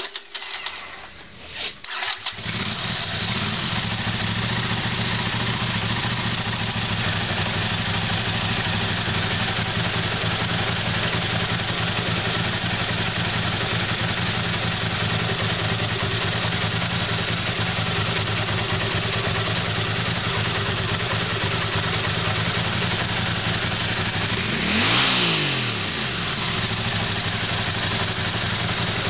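Honda CX500 V-twin being cranked by its starter and catching about two seconds in, then idling steadily on freshly fitted carburetors. Near the end the throttle is blipped once, the revs rising and falling back to idle.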